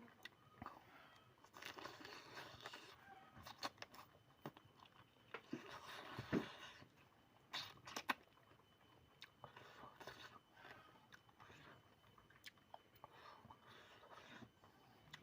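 A person eating chicken curry: faint chewing and crunching with scattered sharp clicks and smacks, a louder crunch about six seconds in and another about eight seconds in.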